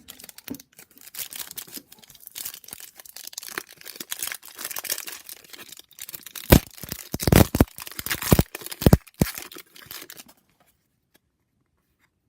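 A trading card pack's wrapper crinkling and being torn open, with several loud rips about six to nine seconds in.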